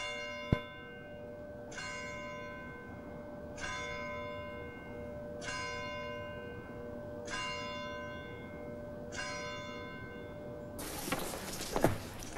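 A single church bell tolling six slow strokes, about two seconds apart, each one ringing on and fading. A sharp click sounds about half a second in, and near the end the bell gives way to a rustling noise with a few knocks.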